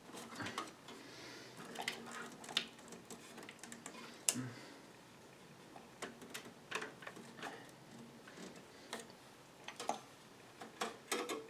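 Irregular light clicks and taps of computer parts and cables being handled inside a PC case, with a sharper knock about four seconds in.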